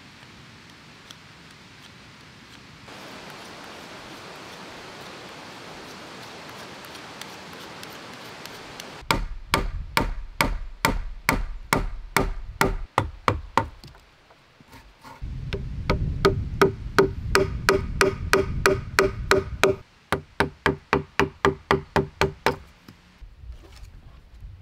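An axe chopping into the end of a log on a chopping block, in runs of regular blows about two to four a second, starting about a third of the way in. Before that there is only a faint steady hiss.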